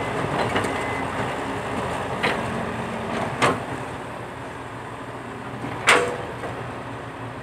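Diesel engine of heavy earthmoving machinery running steadily, with three sharp knocks, the loudest about six seconds in.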